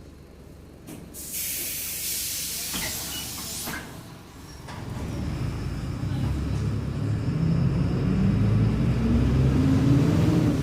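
Mercedes-Benz OF-1722M bus: a loud hiss of compressed air lasting a couple of seconds, then the diesel engine building up as the bus pulls away, with a tone climbing in pitch near the end. The title puts a growl on this bus to its differential.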